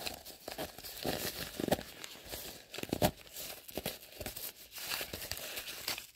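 Plastic bubble-wrap packaging crinkling in irregular crackles as a hand rummages in a zippered wristlet and pulls the wrapped item out, with one sharper click about three seconds in.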